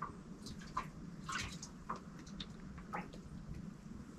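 Water sloshing and splashing in short, irregular splashes, one or two a second, over a low steady background.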